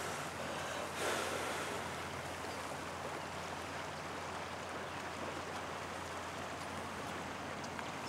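Steady rushing outdoor background noise, with a slight swell about a second in.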